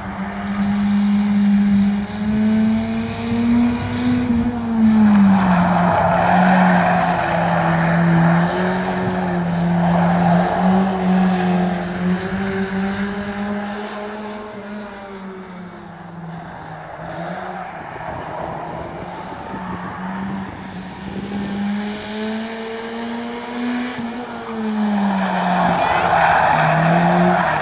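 A single Eurorod oval racing car lapping a shale track in practice. Its engine climbs in pitch under acceleration and drops as it lifts off for the bends. It grows louder with a rushing noise as it passes close about five seconds in and again near the end, and it is quieter in between while it is on the far side of the oval.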